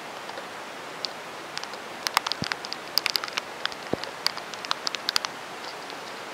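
Heavy rain pouring with a steady hiss. From about two to five seconds in, a flurry of sharp taps comes from big drops striking close to the microphone.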